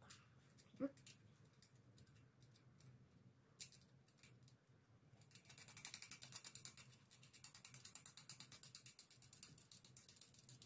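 Bicycle rear hub freewheel ratchet clicking fast and evenly as the wheel spins, then slowing toward the end. Before it, a few quiet handling sounds and one short knock.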